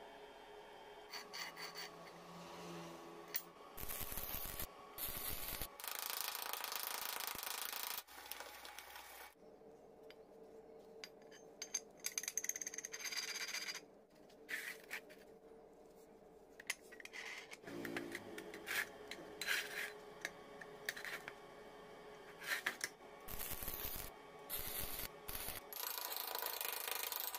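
Steel parts handled on a steel jig: clinks, scrapes and taps of metal on metal, broken by several bursts of steady hiss lasting a second or two.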